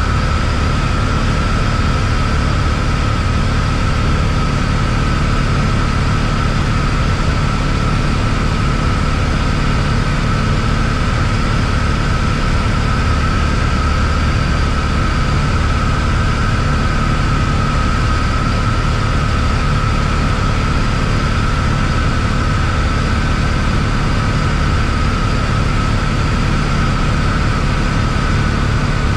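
Steady drone of an Embraer Tupi's four-cylinder Lycoming piston engine and propeller as heard inside the small cabin, with air rushing past and a steady high whine above the low drone, unchanging throughout. The airplane is in a gentle descent toward landing.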